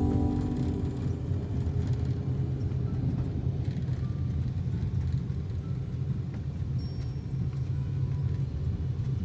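Steady low rumble of a car driving on the road, with music fading out in the first second.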